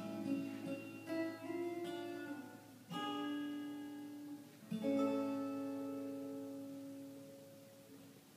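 Acoustic guitar played fingerstyle: a run of picked notes, then two chords struck about two seconds apart. The second chord is left to ring out and slowly fade.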